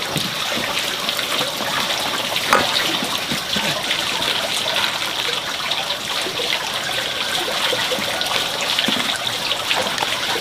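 Water running in a steady stream, trickling and splashing, with a few light knocks.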